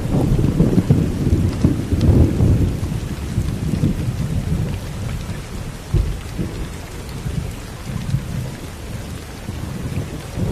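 Thunder rumbling low and rolling under steady rain. The rumble is strongest in the first couple of seconds, dies down through the middle and swells again right at the end.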